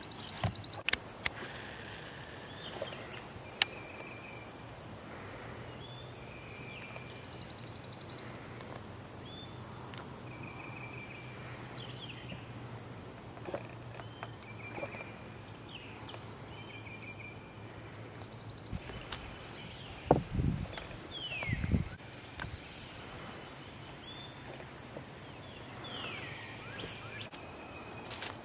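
Outdoor waterside ambience: a steady high-pitched insect drone with scattered bird chirps and calls. A few sharp clicks come in the first few seconds, and a couple of low thumps about twenty seconds in.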